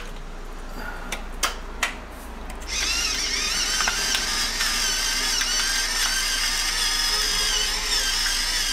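A few clicks, then about three seconds in a battery-powered electric pepper mill starts whirring as it grinds pepper, a steady, slightly wavering motor whine.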